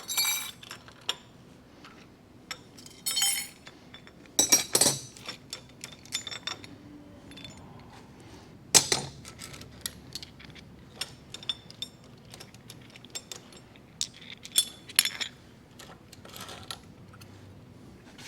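Metal tools and parts clinking and clanking while a milling-machine setup is taken apart: scattered light clinks with a few louder metal knocks.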